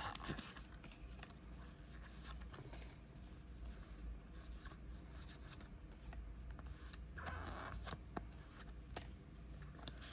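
Faint rustling and scattered light ticks of Pokémon trading cards being handled and flipped through by hand, with a short louder rustle about seven seconds in.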